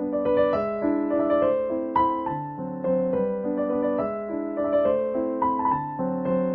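Background music: a gentle piano melody, with notes played over a steady chord pattern.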